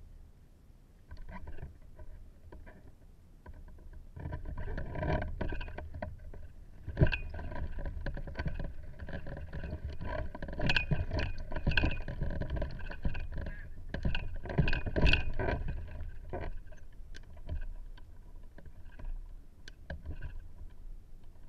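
Wind gusting over a hang glider on launch and buffeting the glider-mounted camera's microphone, with irregular rustles and knocks. The gusts build about four seconds in and ease off near the end.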